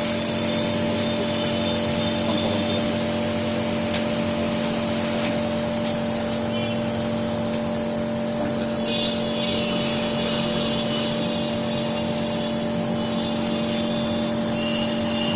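Compressor nebuliser running steadily: a low motor hum with a steady hiss above it.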